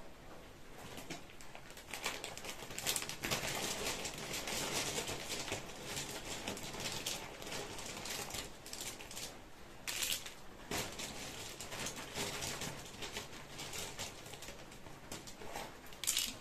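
Small plastic alphabet and number pieces rattling and clicking together as they are shaken, with a louder clatter as they are tipped out onto the table near the end.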